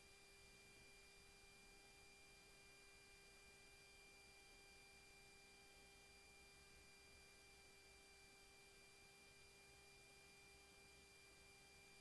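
Near silence: a faint, steady hiss with a few faint constant tones and no events.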